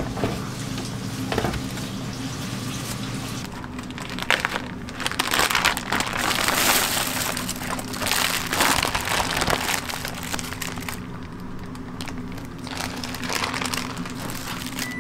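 Kitchen handling noise: irregular rustling and crinkling bursts, loudest in the middle stretch, over a steady low machine hum.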